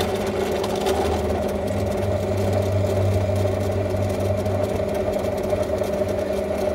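Bench drill press motor running steadily, a 6 mm bit drilling a copper terminal strip clamped in a drill-press vise.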